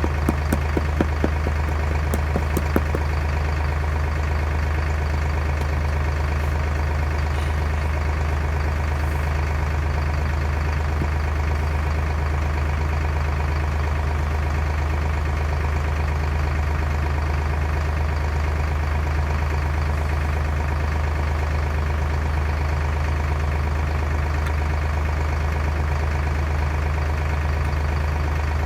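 An engine idling steadily, with a few sharp knocks in the first three seconds.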